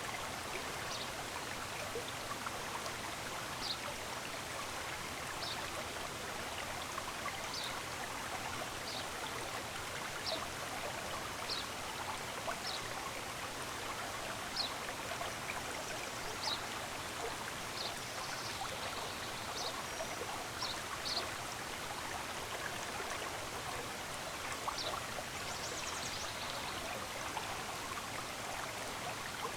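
Steady rush of running water from a stream, with a bird giving short high chirps about once a second over it. Twice, about halfway through and again later on, there is a fuller bit of birdsong.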